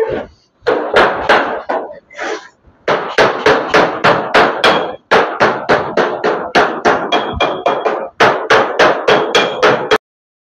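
Hammer blows on galvanized steel sheet, coming in quick runs of about four a second with short pauses between them, as a grooved seam joining the panels of a deep-freezer evaporator box is hammered closed. A few blows leave the sheet ringing briefly, and the hammering cuts off suddenly near the end.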